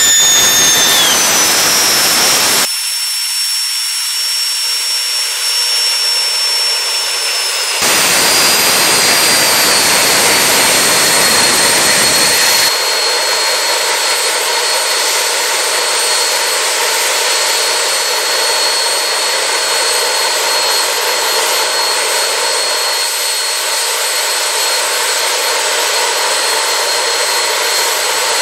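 Homemade gas-turbine jet engine running hard: a loud, steady roar with a high turbine whine. The whine falls in pitch over the first two seconds, then holds steady. The deep part of the roar drops away abruptly about three seconds in, comes back, then drops away again.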